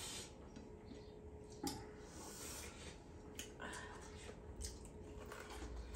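Faint sounds of eating by hand: fingers squishing rice and curry on plates, and chewing, with a few light clicks, over a faint steady hum.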